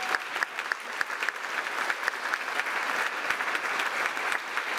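A large audience applauding, a dense, even patter of many hands clapping.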